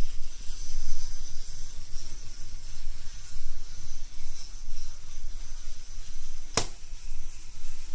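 A LEGO mini-train running along plastic LEGO track, its motor and wheels making a low, uneven rumble. A single sharp click comes about two-thirds of the way through.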